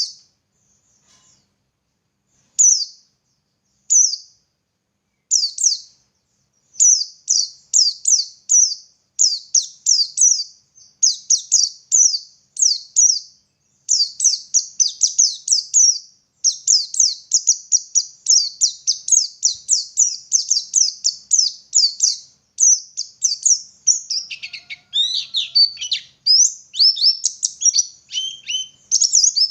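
White-eye (pleci) singing: a few separate high notes at first, then a fast run of short, high down-slurred notes that grows denser. In the last few seconds the song becomes more varied, with some lower notes.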